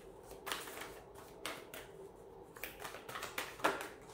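A deck of oracle cards being shuffled by hand: a run of irregular soft card slaps and flicks in small clusters, with a short pause in the middle.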